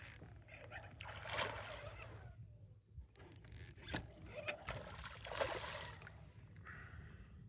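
Water noise around a fishing kayak: two swishing swells a few seconds apart, with a quick cluster of sharp clicks between them, over a steady low rumble.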